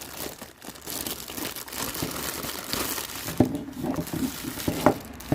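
Plastic wrapping crinkling and tearing as it is pulled off a soldering station's power unit, with a few sharp clicks and knocks in the second half.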